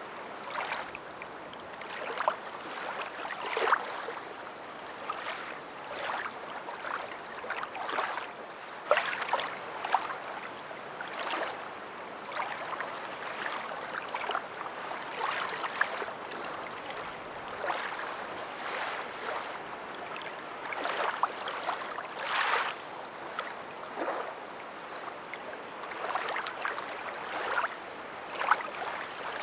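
Water splashing and lapping in a continuous run of short, irregular sloshes.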